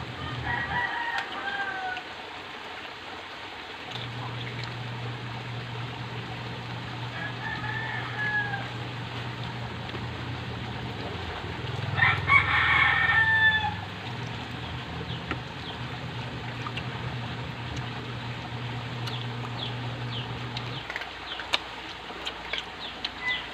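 A rooster crowing in the background: short calls about a second in and about eight seconds in, then a longer, louder crow about twelve seconds in. A steady low hum runs underneath and drops out twice, and a few sharp clicks come near the end.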